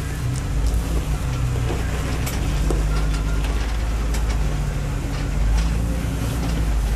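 Off-road rig's engine running steadily at low speed while it is winched up a rock ledge, with scattered knocks and scrapes of tyres and metal on rock.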